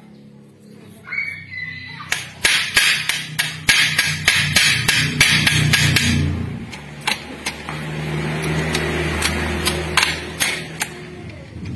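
Hammer strikes on metal as a Toyota Avanza manual transmission is being reassembled. A quick run of sharp taps starts about two seconds in, then thins out to scattered knocks after about six seconds.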